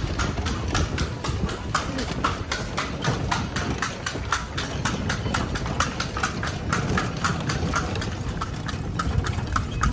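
Hooves of a horse pulling a kalesa (horse-drawn carriage) clip-clopping in a quick, even rhythm of about four strikes a second, over a steady low rumble.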